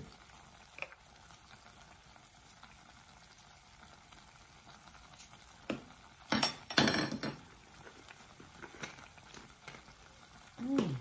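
Spices and utensils being handled over a pot of chitterlings: scattered light clicks over a faint steady hiss, with a short clatter of knocks about six and a half seconds in.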